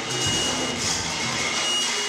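Free-improvised experimental music: a dense, steady, grating drone of bowed strings, with a few thin high tones held briefly above it.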